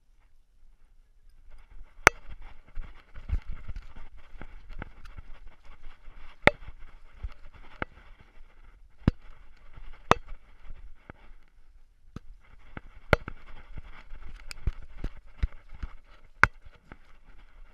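Rubbing and scraping on a GoPro Hero3 Silver worn on a dog's collar as the dog moves through grass, with scattered sharp clicks and knocks and a low rumble from the moving mount. The scraping pauses briefly at the start and again about two-thirds of the way through.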